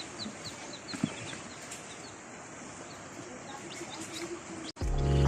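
Chickens clucking and a small bird giving short, high chirps about three times a second. Near the end it cuts abruptly to loud music.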